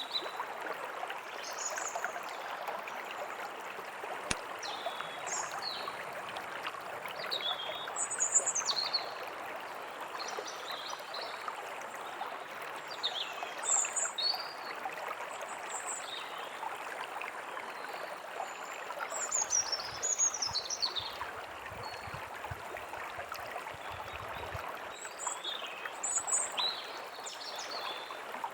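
A forest stream running steadily, with small songbirds calling in short high chirps and quick trills throughout.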